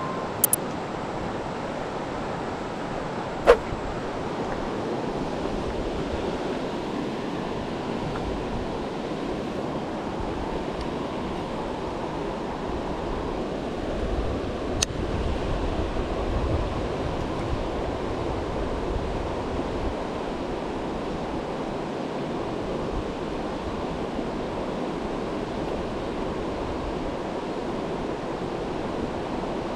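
Steady rush of river water running over rocks, a constant hiss. A single sharp click about three and a half seconds in.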